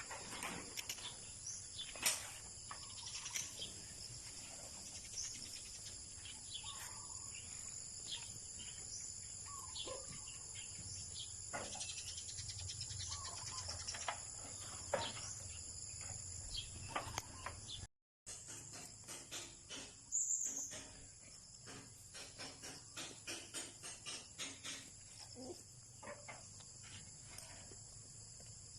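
Steady high-pitched insect chorus, like crickets, with scattered short ticks and a few brief bird calls over it. The sound cuts out completely for a moment about two-thirds of the way through.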